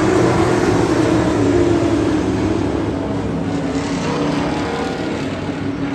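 A pack of dirt-track modified race cars racing past, their V8 engines blended together into one steady, loud sound that grows a little quieter in the second half.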